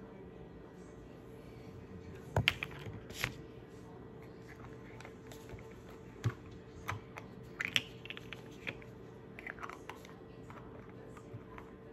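Irregular light taps and clicks close to the microphone, like fingers typing and tapping on a device, with the loudest cluster a couple of seconds in; a faint steady hum runs underneath.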